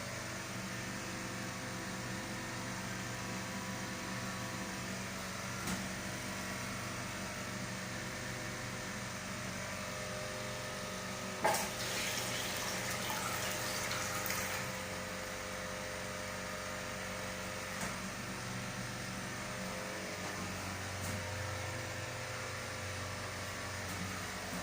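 Steady ventilation hum in a small tiled restroom. About halfway through, a sharp click of a push-button flush valve on a urinal is followed by about three seconds of rushing water, then the hum alone again.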